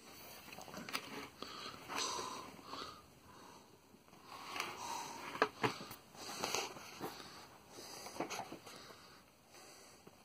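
Breathing and sniffing close to the microphone, a breath every second or two, with a few sharp clicks of handling.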